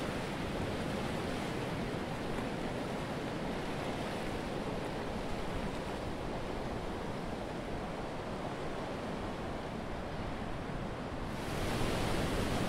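Ocean surf washing on a sandy beach, a steady rushing wash. About eleven seconds in it turns louder and hissier.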